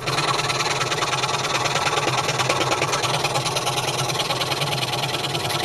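Delta scroll saw running steadily, its blade going up and down in a fast, even chatter.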